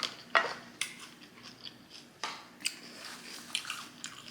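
Close-miked chewing and biting: a run of short, crisp crunching clicks and wet mouth sounds, the loudest about half a second in.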